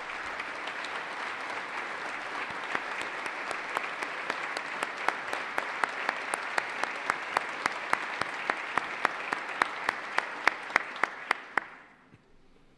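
Audience applauding, with a few sharp, loud claps standing out at about three a second from about three seconds in; the applause dies away near the end.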